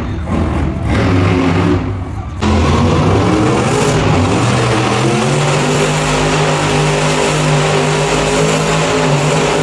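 A monster truck's engine running loud, picking up sharply about two and a half seconds in and then holding a steady note.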